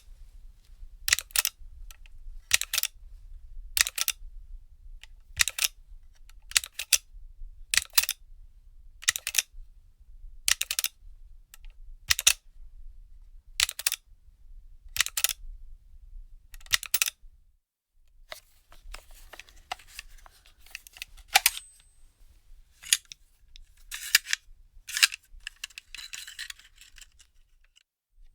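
Sharp single mechanical clicks from a gun's action, evenly spaced about one every second and a half, then quicker, irregular clicks and rattling near the end.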